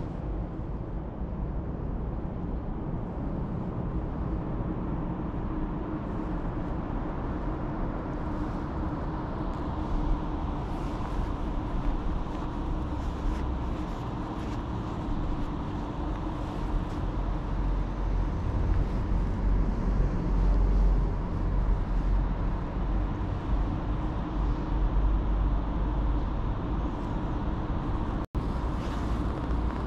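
Steady low vehicle rumble with a constant hum and even noise on top, stronger in the low end from about the middle on.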